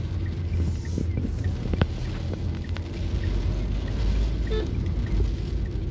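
Car driving on a wet road, heard from inside the cabin: a steady low rumble of engine and tyres, with a few faint clicks.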